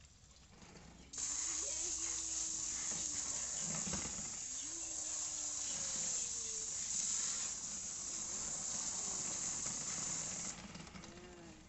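Garden hose spray nozzle shooting a jet of water in a steady loud hiss. The spray starts suddenly about a second in and cuts off suddenly near the end.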